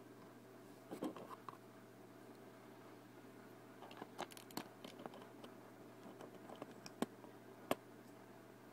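Plastic Lego pieces being handled and pressed together: scattered small clicks and light rattles, in a little cluster about four seconds in, with two sharper clicks near the end.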